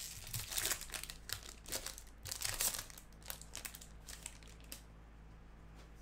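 Baseball card pack's wrapper crinkling and tearing as it is opened by hand, a quick run of sharp crackles that dies down about five seconds in.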